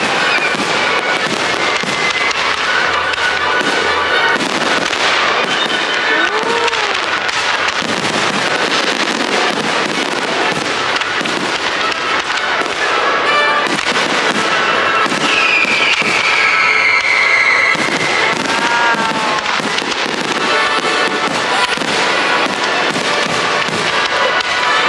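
Fireworks display: rapid, continuous crackling and popping of bursting shells, with a long falling whistle about halfway through.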